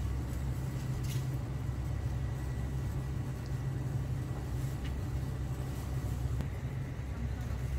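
Steady low rumble of street-stall background noise, with a few faint light clicks.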